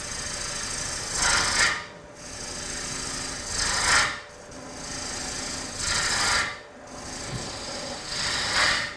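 Gouge cutting into a spinning Bradford pear bowl blank on a wood lathe, shaping the tenon on its base. The hiss of shavings swells four times, about every two and a half seconds, as the tool makes repeated passes.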